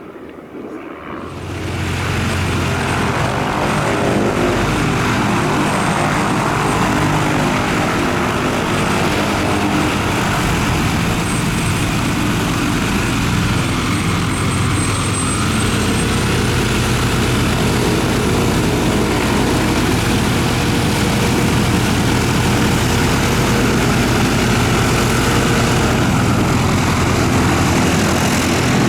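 Light propeller aircraft's piston engine running steadily close by. It comes in sharply about a second and a half in, then holds an even, unchanging note.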